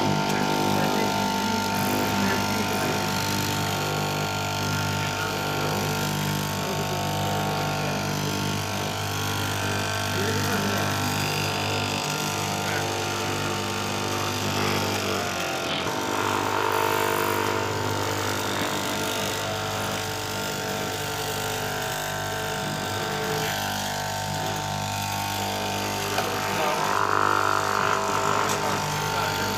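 Electric cloth-cutting machine running steadily as its blade cuts through layered lycra fabric, a constant motor hum.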